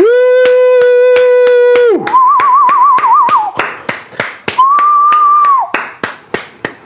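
Closing flourish of a live song with guitar: a loud high note held for about two seconds, then a shorter wavering note and a higher held note. Sharp beats run under it at about five a second.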